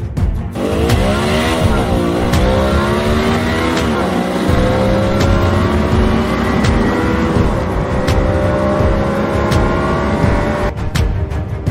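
A vehicle's engine running under way, heard from on board. Its pitch rises and drops twice in the first few seconds, as with gear changes, then holds steady and climbs slowly. Briefly at the start and again near the end, music plays instead.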